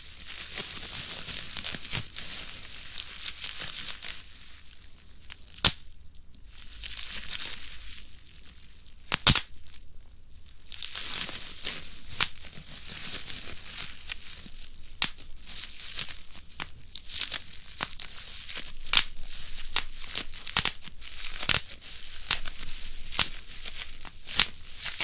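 Plastic bubble wrap being squeezed and crumpled by hand: a steady crinkling of the film broken by sharp pops as bubbles burst, more frequent in the second half, the loudest about nine seconds in.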